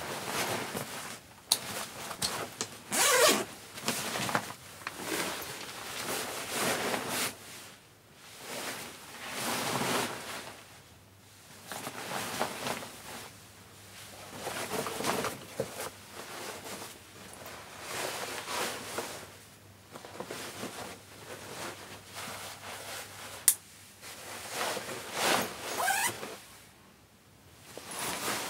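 Zips on a trekking rucksack and a zip-around packing pouch being pulled open and shut, mixed with the rustle of polyester fabric as gear is handled and packed, in repeated bursts. One sharp click about three-quarters of the way through.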